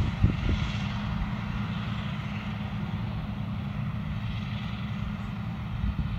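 Steady low drone of a diesel farm machine's engine running, with a couple of low bumps just after the start.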